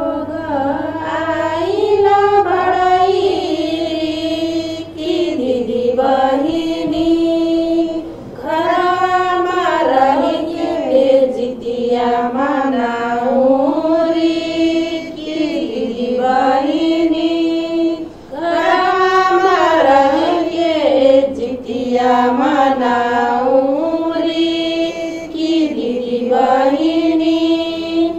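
A woman singing an ornamented melody in phrases of a few seconds, with short breaks between them.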